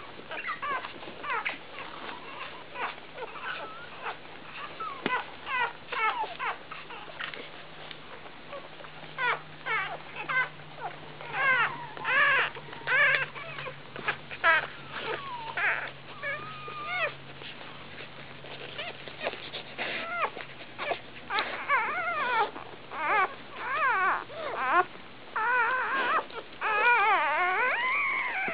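A litter of one-day-old Labrador retriever puppies squeaking and whimpering: many short, high, wavering squeaks that come thicker and run together near the end.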